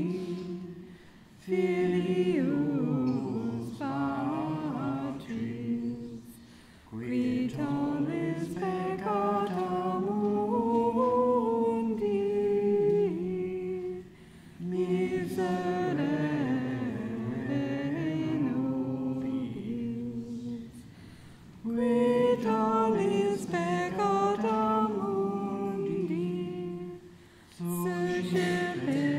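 Unaccompanied liturgical chant sung in long, slowly moving phrases, each separated by a brief pause for breath.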